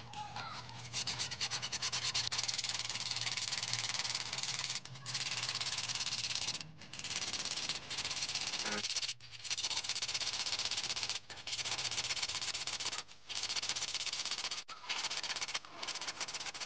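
P100 silicon-carbide sandpaper rubbed by hand over a steel plumb bob, a scratchy rasp that comes in spells of one to four seconds with brief pauses between strokes, as rust is sanded off the metal.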